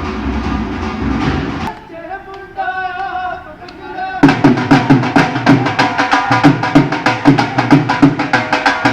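Music: after a dense, noisy opening that cuts off abruptly, a few sustained melody notes play. About four seconds in, a driving drum beat comes in at roughly four hits a second.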